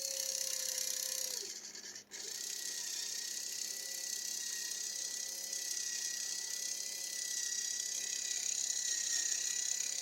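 Small RC servo motor driving a threaded-rod extension mechanism, running with a steady whine; it pauses briefly about two seconds in and resumes at a higher pitch, holding steady until it winds down near the end.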